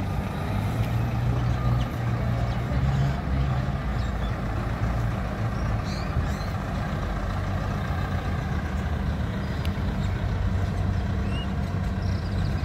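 Steady low rumble of passing road traffic, with a heavy vehicle's engine among it.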